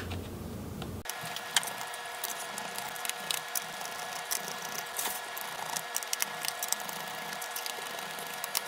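Small Torx screwdriver backing out the screws of a laptop's bottom case: many quick, scattered clicks and scrapes of the bit and screws against the case, over a steady hum that starts about a second in.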